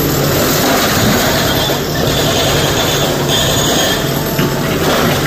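SANY SY225 hydraulic excavator working under load, its diesel engine and hydraulics running steadily while broken rock clatters and scrapes against the steel bucket and truck bed. Brief high squeals come and go over the din.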